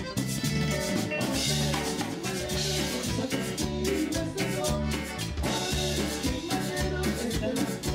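Background Latin band music in a tejano style, with drums, bass and a steady upbeat rhythm.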